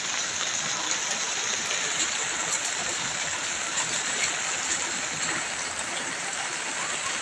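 Heavy rain falling steadily on an umbrella held overhead.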